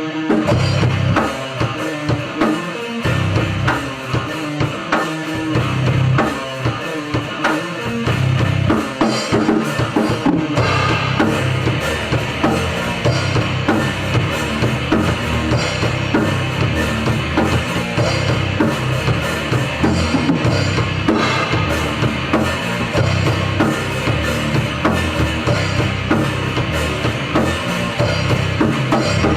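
Rock band playing live in rehearsal, the drum kit loud with bass drum and snare keeping the beat. The low end comes in stop-start hits at first and fills out into a steady groove about eight seconds in.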